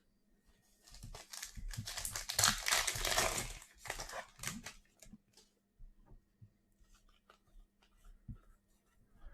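Plastic wrapper of a trading card pack crinkling and tearing as it is opened, loudest about two and a half to three seconds in, followed by scattered light ticks and rustles as the cards are handled.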